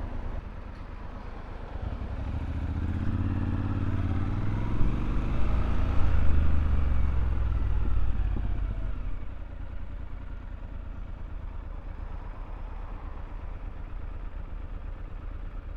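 Triumph Scrambler 1200 XE's parallel-twin engine running under way with road and wind noise; the engine note rises and grows louder for several seconds, then falls back to a quieter, steady run for the second half.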